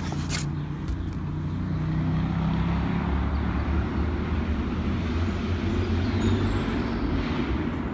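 Steady low rumble of a motor vehicle going by, with a hiss that swells through the middle and fades near the end.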